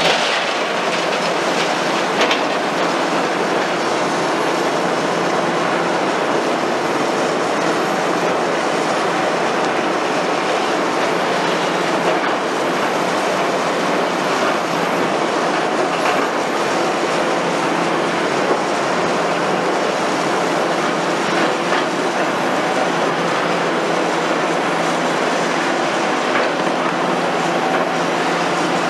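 Liebherr R960 demolition excavator's diesel engine running under load while its hydraulic crushing jaws bite and grind into reinforced concrete, a steady clattering grind of concrete and steel with a few sharper knocks.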